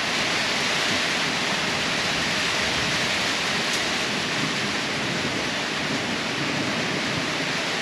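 Heavy rain falling steadily, a constant hiss from a thunderstorm downpour.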